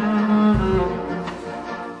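Recorded music led by low bowed strings holding long notes, with a deep low thud about half a second in.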